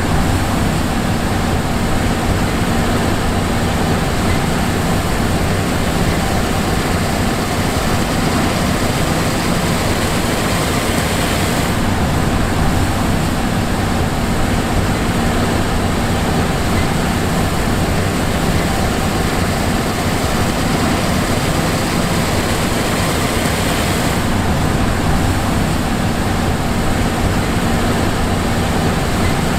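John Deere S780 combine's diesel running steadily, a constant drone with several steady hums and a hiss over it.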